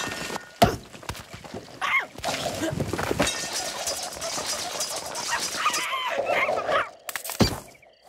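Cartoon sound-effect mix: sudden crashes and thuds, a sharp one under a second in, another around two seconds and a loud one near the end, with a cartoon bird character's cries in between.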